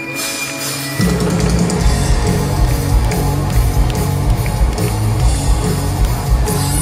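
Live hard rock band playing through a stadium PA: after a quieter held chord, the full band comes in loud about a second in, with drums, bass guitar and distorted electric guitars.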